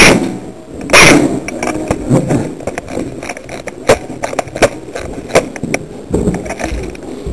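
Handling noise close to the microphone: two loud thumps in the first second or so, then irregular clicks and knocks over low rustling.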